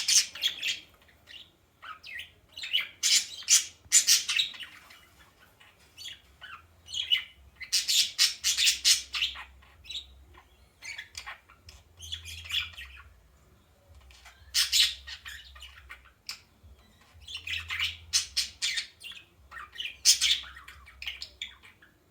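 A bird calling in bursts of rapid, sharp squawks and chirps, each burst a second or two long with short pauses between them, falling quiet near the end.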